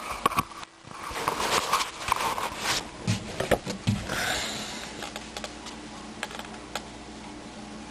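Irregular clicks and rustling of plastic parts and wires being handled as a smoke alarm's wiring adapter is readied for connection, busiest in the first half and sparser after about five seconds.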